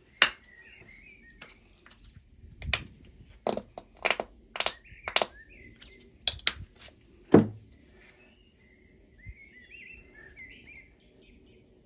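A dozen or so sharp clicks and taps in the first seven or eight seconds, as plastic acrylic paint tubes and their caps are handled over a plastic palette. Small birds chirp faintly in the background, most clearly near the end.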